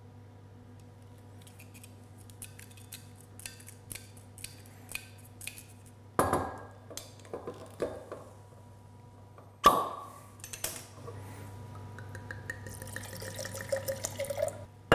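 A bottle of red wine being opened and poured. There are small clicks and scratches as the foil is cut, a knock about six seconds in and a sharp pop with a short ring near ten seconds as the cork is drawn. Then the wine pours into a glass, its pitch rising steadily as the glass fills.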